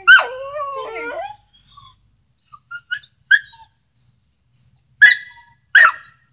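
Dog barking, with a drawn-out falling whine after the first bark, a few short yips midway and two sharp barks near the end.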